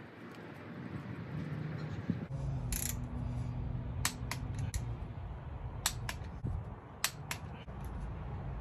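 Scattered sharp metal clicks and clinks of tools and engine parts being handled, irregular and a few per second at most, over a low steady background rumble that starts about two seconds in.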